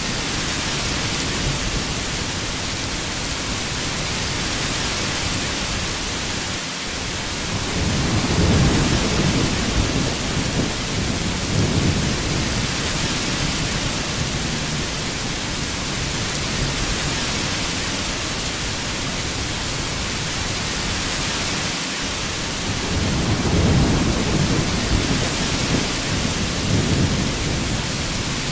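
Heavy rain falling in a steady hiss, with two low rolls of thunder, one about a third of the way in and another near the end.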